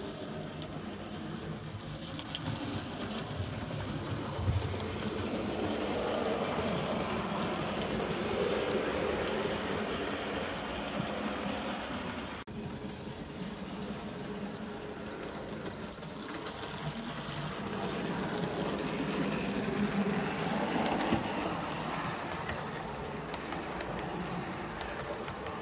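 Model railway trains running on the layout track: a steady rumble of wheels on rails and motor hum, swelling twice as trains pass close by. There is one brief knock about four seconds in.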